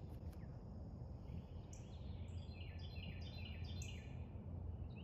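Faint birds chirping in the background, a run of short high notes repeated over and over, over a steady low hum.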